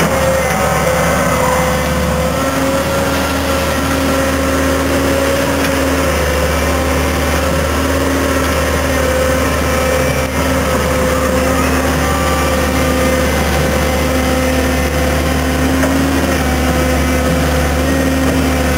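Fiat Hitachi EX165 tracked excavator running steadily under load, its diesel engine rumbling with a whine whose tones shift up and down as the boom and bucket move.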